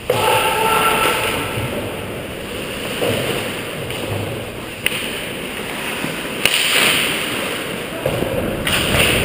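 Ice hockey heard from a helmet camera: skate blades scraping and carving the ice in surges. Sharp stick-and-puck clacks sound four times.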